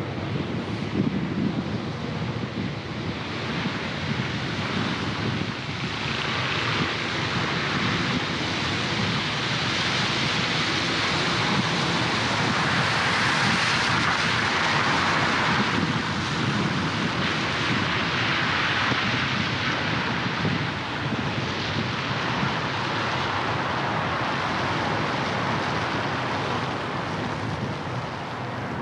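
Traffic noise on a wet road: steady tyre hiss and spray over a low engine and traffic rumble. The hiss swells to its loudest about halfway through, then eases.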